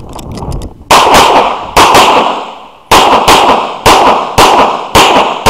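Handgun shots fired in quick pairs, each shot followed by an echo off the range berm. The first shot comes about a second in, and a new pair follows roughly every second: double taps on each target in an IPSC course of fire.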